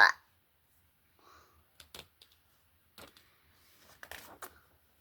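Faint rustles and light clicks of paper being handled, as the pages of a picture book are turned. A short, loud sound comes right at the start.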